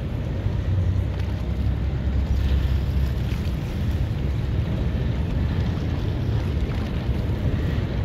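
Steady low rumble of a boat under way on choppy harbour water, with water washing and wind buffeting the microphone.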